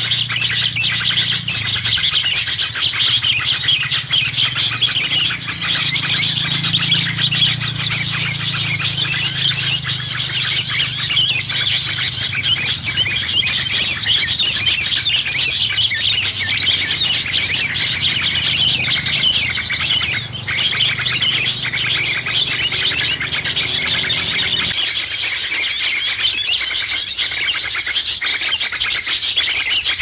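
Small birds chirping and twittering without pause, many calls overlapping. A low steady hum underneath cuts off suddenly near the end.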